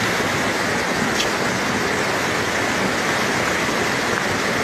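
Muddy floodwater from a swollen mountain stream rushing down a street: a loud, steady roar of water.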